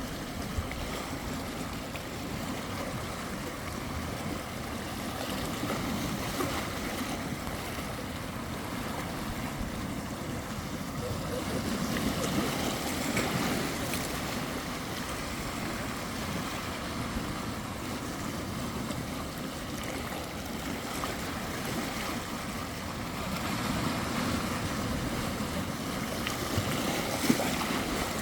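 Sea waves breaking on the shore: a continuous rush of surf that swells louder twice, around the middle and again near the end.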